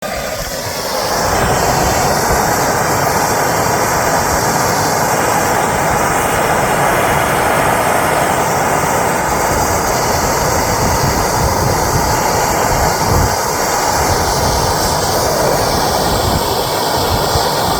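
Soldering torch flame running with a steady roar as it heats copper pipe for soldering. The roar builds about a second in, then holds even.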